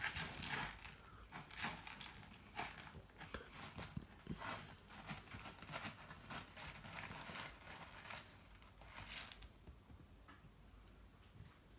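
Irregular soft scratching and rustling as kittens move about, stopping about nine and a half seconds in.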